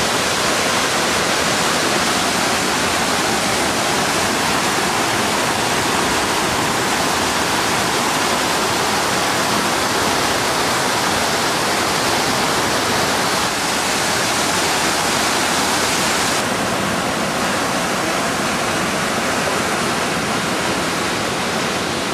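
Floodwater of a swollen river rushing in a loud, steady wash of noise.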